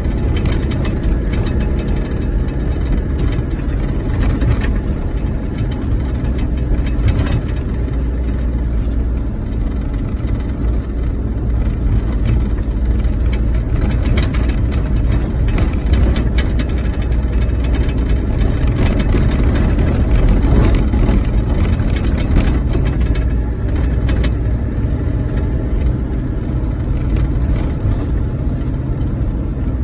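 A car running along at steady road speed, heard from inside the cabin: a continuous low engine and tyre rumble, with a few light knocks from bumps in the road.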